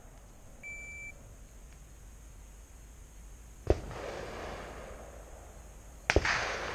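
A shot timer's start beep, one short high tone about half a second in, then 9mm Glock 19 pistol shots: one about three and a half seconds in and a quick pair near the end, each with a short echo tail.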